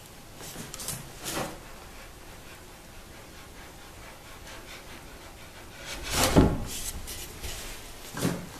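Wooden tenon sliding into its mortise as a leg is test-fitted: wood rubbing, a couple of small knocks, then a heavy thud about six seconds in as the leg seats home, and a lighter knock near the end.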